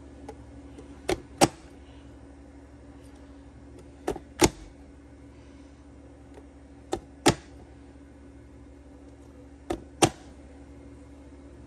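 An onion being chopped small: sharp chopping clacks in pairs, a pair about every three seconds, over a faint steady hum.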